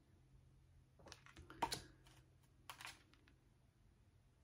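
Faint handling of tarot cards: a few short soft swishes and clicks as the cards are shifted and slid against one another, about one to two seconds in and again near three seconds, the loudest a little under two seconds in.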